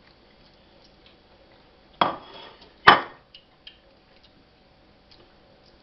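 Tableware clattering: two sharp knocks about a second apart, two to three seconds in, with a short ring after each, followed by a few lighter clicks.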